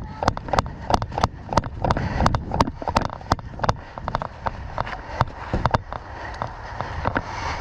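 Quick, evenly paced footsteps of a person moving at a jog, about three steps a second, with sharp jolts that thin out and become uneven after about four seconds.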